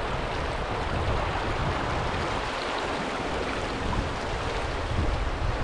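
The Piedra River rushing over a shallow, rocky bed through riffles and small rapids: a steady, even rushing of water.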